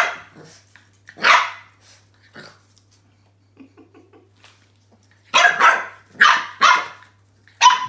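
French bulldog puppy barking at a new toy ball he is wary of: short, sharp puppy barks, one at the start and another about a second in, then a quick run of four near the end.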